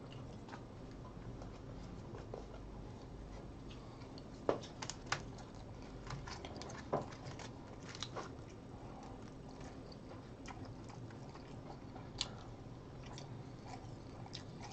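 Quiet chewing with scattered sharp clicks and taps of wooden chopsticks picking apart grilled mackerel in a foil-lined tray.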